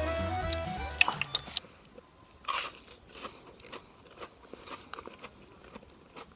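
Crunching bites and chewing of a freshly deep-fried breaded minced-meat cutlet with a crisp coating. The crunches come irregularly, the biggest about two and a half seconds in.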